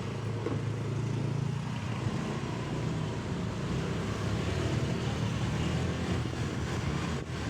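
A car's engine running steadily under road and traffic noise as the vehicle drives along a street.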